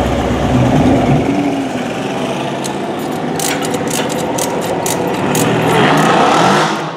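Mercedes C63 AMG Black Series' bi-turbo V8 with Capristo exhaust pulling away at low speed, its exhaust rumbling, with a quick run of sharp cracks in the middle. Near the end it revs up, rising in pitch and at its loudest, then falls away.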